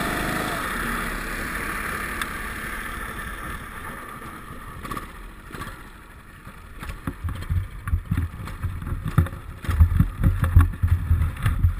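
Onboard sound of an ice kart: its engine note fades away over the first few seconds as the kart slows. From about halfway, irregular low thumps and rumbles come and go, growing louder near the end.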